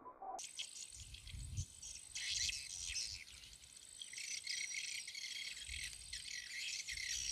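Insects chirping in a dense, continuous chorus over a steady high-pitched whine, with a few low thumps mixed in.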